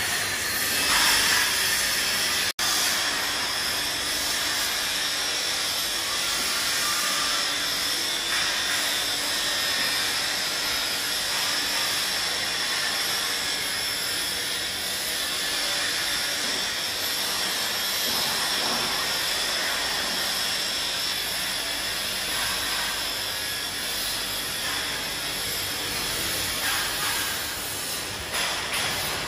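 Steady machinery noise on a steel grating factory floor: a continuous high hiss with little low end, broken by a brief dropout about two and a half seconds in.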